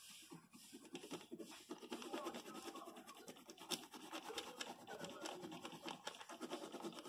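Colored pencil shading rapidly back and forth on sketchbook paper: a faint, continuous scratching made of many quick strokes.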